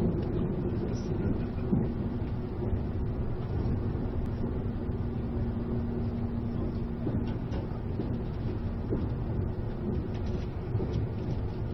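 E259 series Narita Express train running: a steady low rumble, with a faint steady hum for several seconds early on and a few light clicks.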